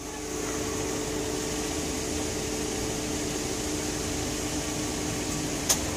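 Steady mechanical hum over a constant noise, with one short sharp click near the end.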